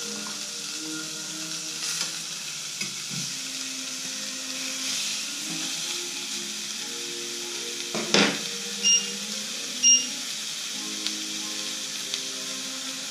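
Marinated steaks sizzling steadily in a hot cast-iron grill pan as a second steak is laid in with tongs. A sharp clack about eight seconds in, then two short electronic beeps about a second apart.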